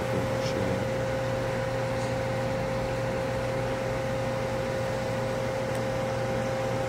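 Steady mechanical hum with one constant tone over a low drone, as from a running machine such as a fan or air-conditioning unit.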